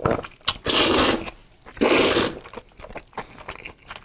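A person slurping noodles off chopsticks: two long, loud slurps, the first just under a second in and the second about a second later, with small wet mouth clicks between.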